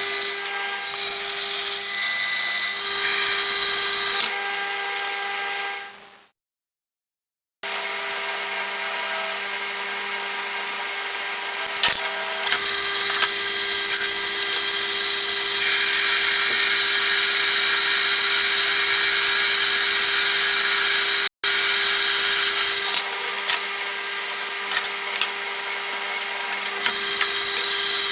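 Metal lathe running and cutting: a steady machine hum with a harsh, hissing cutting noise. The sound cuts out completely for about a second some six seconds in, and again for an instant later on.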